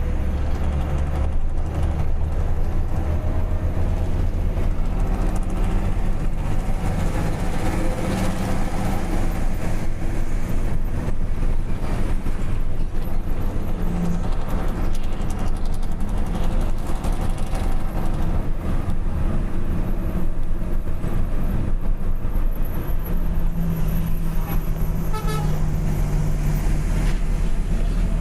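Vehicle engine with a straight-pipe exhaust, running loudly and steadily with a deep, low-pitched note.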